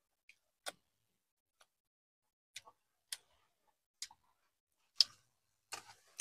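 Eating sounds at a meal: a handful of faint, scattered clicks and taps, with one louder tap about five seconds in.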